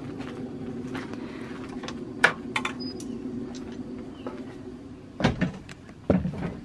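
Motorhome screen door being handled, with sharp latch clicks, the sharpest a little over two seconds in. Heavier thuds of footsteps on the camper's steps and floor follow near the end, over a steady low hum.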